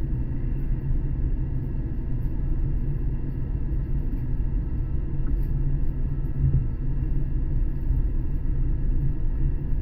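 Steady low rumble and hum inside an 800 Series Shinkansen car standing at a station, with a few faint steady tones above it.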